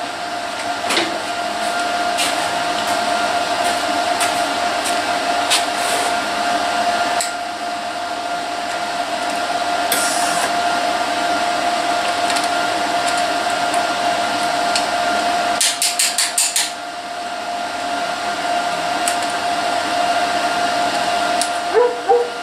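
MIG welder at work on a steel frame: a steady hum and hiss with scattered sharp crackles, and a quick run of about six clicks about sixteen seconds in.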